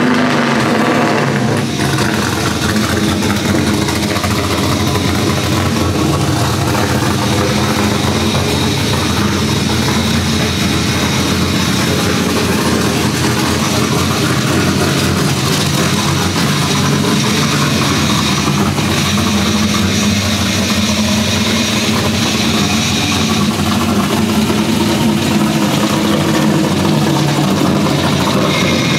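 LS V8 engine in a Nissan 240SX drift car, running steadily at low revs.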